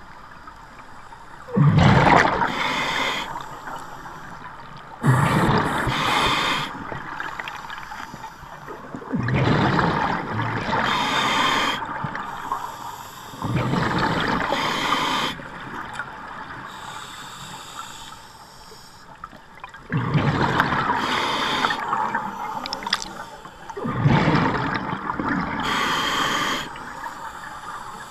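Scuba diver breathing through a regulator underwater: each breath a hiss and a rush of exhaled bubbles, six breaths a few seconds apart.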